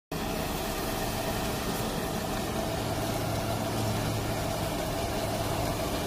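Hako ride-on sweeper running steadily while it sweeps along a kerb, a continuous machine hum with the rush of its brushes and fan.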